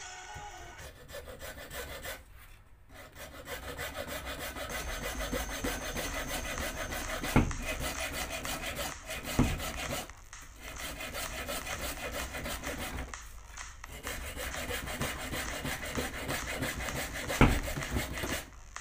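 Hand hacksaw cutting through a plastic toothbrush handle with quick back-and-forth strokes. It stops for short breaks a few times, and the saw knocks sharply three times.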